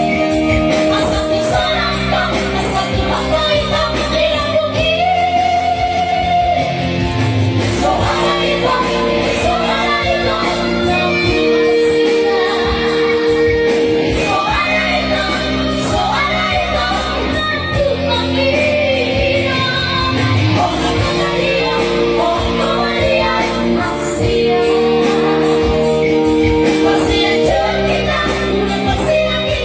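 A Batak song played live on electronic keyboard and drum kit, with a singer holding long, high notes over the band.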